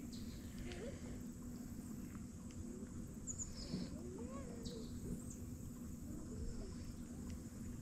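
Faint outdoor ambience: a low rumble with a steady low hum under it, and a few short, high bird chirps near the middle.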